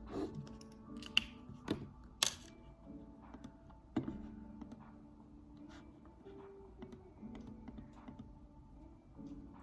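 Scattered clicks from a computer keyboard and mouse: a few sharper clicks in the first four seconds, then fainter, sparser ticks. Soft background music plays throughout.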